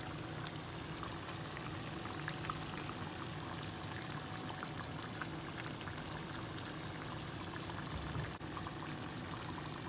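Pot of curry chicken simmering on the stove: a steady bubbling with many small pops over a low, steady hum.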